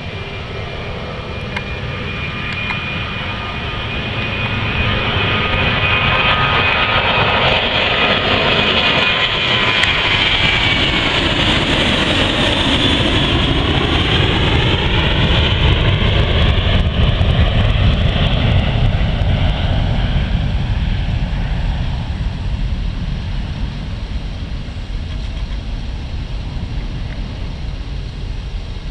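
Boeing 737's twin CFM56 turbofan engines at takeoff power. The whine and rumble build as the jet rolls and lifts off, the pitch sweeps downward as it passes close overhead, then a deep rumble fades as it climbs away.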